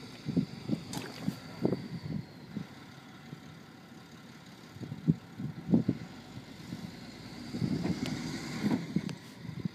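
Wind buffeting the microphone in irregular gusts, over the steady running of the stuck flatbed tow truck's engine.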